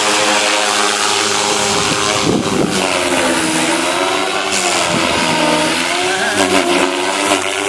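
ALZRC Devil 420 electric RC helicopter flying aerobatics: a steady rotor and motor whine whose pitch dips and rises repeatedly through the middle as the manoeuvres load the rotor.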